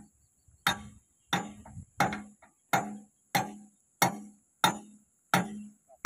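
Hammer blows on the steel pin of an excavator's bucket linkage during a bucket change: about nine ringing metal strikes at a steady pace of roughly one and a half a second.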